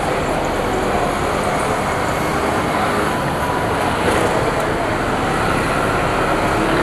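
Steady traffic noise, an even hiss of passing vehicles with no distinct events.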